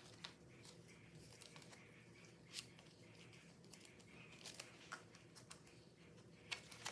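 Faint rustling of paper banknotes being handled and slipped into a binder wallet's pockets, with a few soft clicks.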